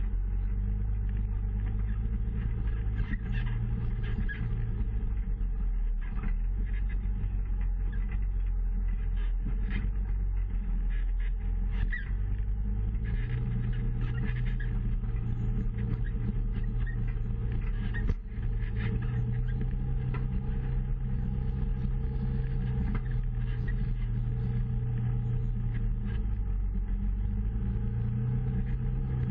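Off-road side-by-side engine running at low trail speed, its low drone rising and easing as the throttle changes, with scattered knocks and rattles from the rocky ground and one sharp knock about 18 seconds in.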